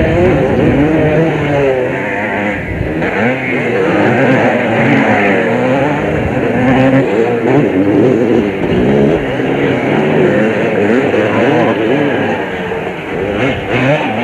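Several motocross bikes' engines revving hard on a dirt track, their overlapping notes rising and falling with the throttle as the bikes pass.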